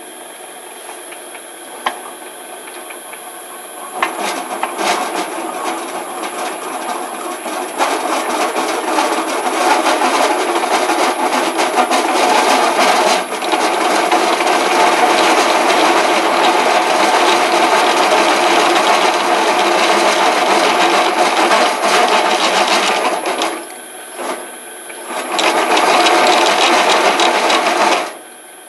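Drill press running at low speed while a step drill bit (unibit) cuts through a metal bracket held in a vise, enlarging its hole to bolt size. The cutting noise comes in about four seconds in, grows louder a few seconds later, dips briefly near the end, resumes, and stops just before the end.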